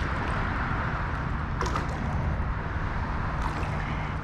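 Steady rumble of autobahn traffic on the bridge overhead, with a couple of brief clicks about two and three and a half seconds in.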